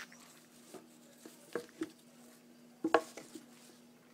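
A handful of light knocks and taps from dolls and props being handled, spread unevenly, with the loudest pair about three seconds in, over a faint steady hum.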